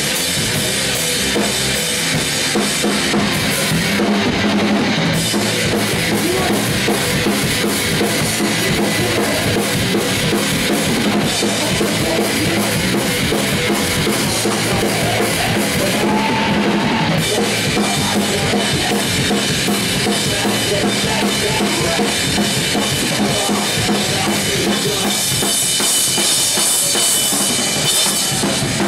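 Punk rock band playing live and loud: a Squier electric guitar strummed over a full drum kit with bass drum.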